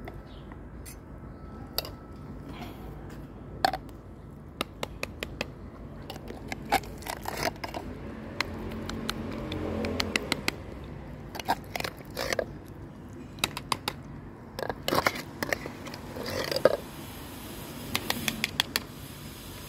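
Metal spoon scraping and clicking against a tin food tray and silicone bowls as wet cat food is scooped out: a string of short scrapes and clicks, coming thicker in the second half.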